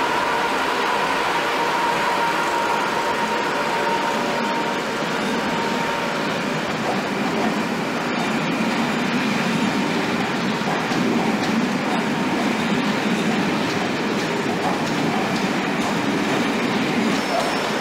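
Electric locomotive and coaches moving through a station: a steady high hum for the first few seconds, then the rumble of wheels on the track growing stronger.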